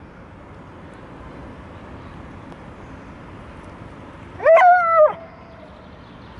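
A dog gives one high, pitched whine of under a second, about four and a half seconds in, rising at the start and dropping at the end, over a steady background hiss.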